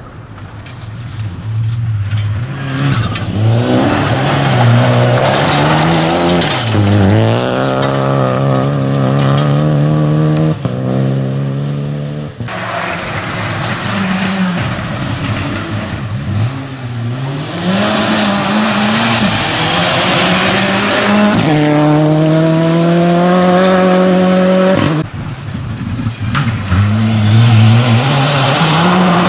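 Rally cars at full throttle on a gravel stage, engines revving up and dropping back through gear changes as they pass, with a hiss of tyres and flung gravel. Several passes follow one another with sudden cuts between them; near the end it is a Škoda Fabia rally car sliding through a loose corner.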